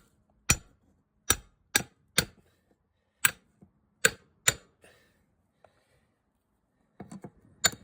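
About seven sharp metal-on-metal hammer blows on a homemade angle-iron tool wedged against an ATV rim, knocking out a dent, each with a short metallic ring. The blows come in the first four and a half seconds.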